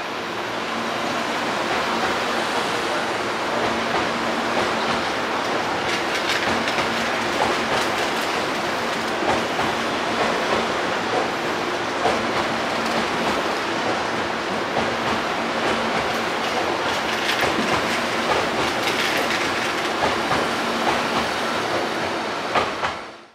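Hankyu 1000 series electric train running on the rails, with scattered sharp clicks over a steady low hum. The sound builds over the first couple of seconds, holds steady, then cuts off abruptly just before the end.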